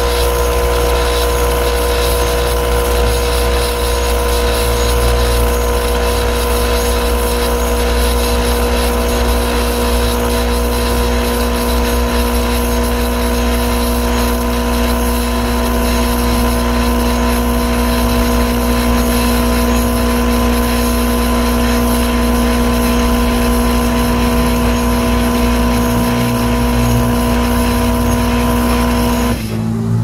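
Tefal semi-automatic espresso machine's pump running with a steady hum while pulling an espresso shot; it cuts off abruptly near the end.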